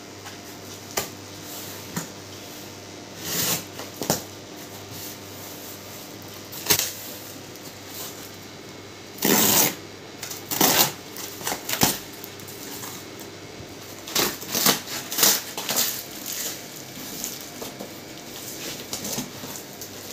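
A knife cutting packing tape and cardboard on a shipping box, with irregular scrapes and short rips of tape and card. The longest and loudest rip comes about halfway through.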